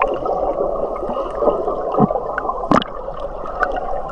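River water rushing and gurgling close by, with a few short splashes.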